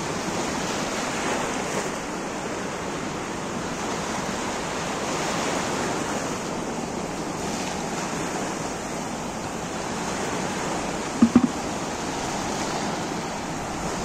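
Sea waves breaking and washing in over rocks on the shore, a steady surf noise. A brief, loud double sound cuts in about eleven seconds in.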